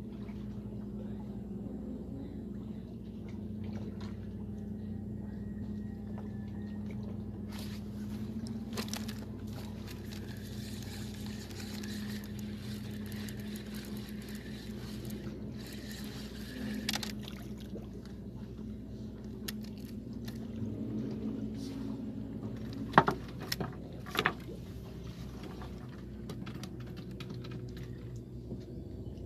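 A motor runs steadily with a low hum throughout. A hissing noise lasts several seconds in the middle, and two sharp knocks about a second apart come near the end.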